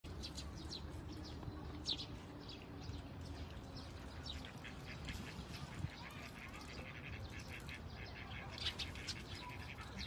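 Small birds chirping in quick, short calls again and again, with a few louder chirps about two seconds in and near the end, over a low steady background rumble.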